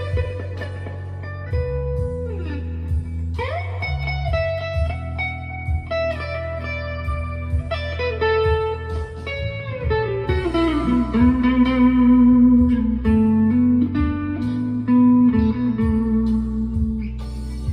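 Chapman ML1 Pro Hybrid electric guitar played through delay and reverb: a melodic line of sustained notes with pitch slides, one sliding up about three seconds in and a long slide down around the middle.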